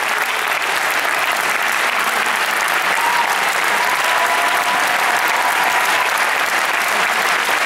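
Theatre audience applauding steadily, a dense even clapping, with a faint drawn-out call from the crowd about three seconds in.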